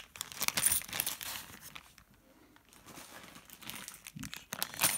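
Thin plastic zip bag of coins crinkling as gloved hands rummage in it, busy for the first two seconds, quieter in the middle, picking up again near the end.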